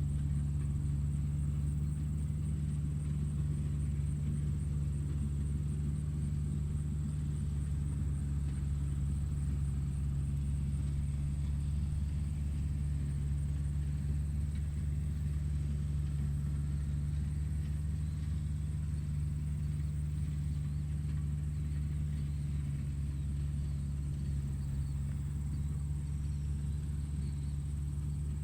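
Tractor engine running at a steady speed: a constant low drone with no change in pitch or load.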